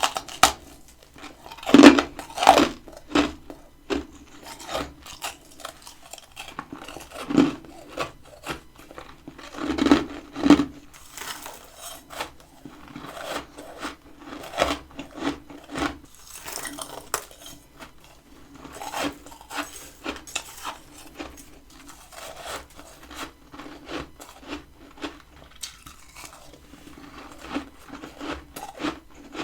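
Close-up biting and crunchy chewing of freezer frost. A few loud, crisp bites come in the first ten seconds or so, then quicker, quieter crackling crunches as it is chewed.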